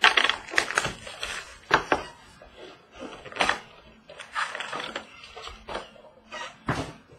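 Hands handling the packaging and cards of a box of trading cards: irregular crinkling, rustling and light taps, several sharp strokes a second, as the next box is opened.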